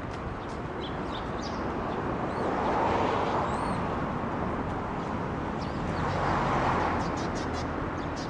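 Outdoor city ambience: traffic swells past twice, about three seconds in and again a little after six seconds, with small birds chirping.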